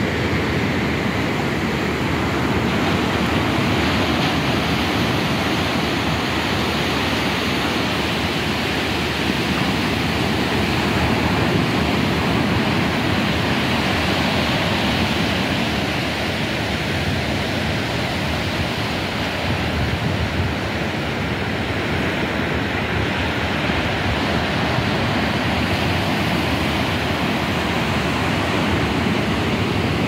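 Sea surf breaking and washing up a sandy beach, a steady rushing wash with no single wave crash standing out.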